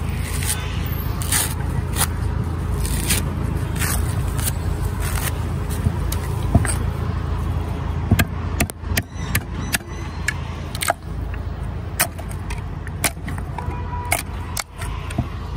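Dry coconut husk being torn and scraped off an old coconut by hand, with a steady low rumble behind it. About halfway through come sharp, irregular knocks and scrapes as a knife works the hard shell until it cracks.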